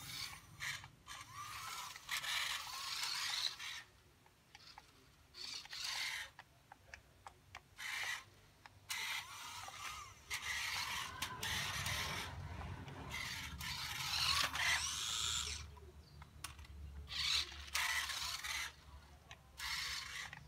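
Electric drive motor and gears of an RC car run at high voltage, whining and rattling in repeated short bursts of throttle with pauses between, the pitch rising and falling within each burst.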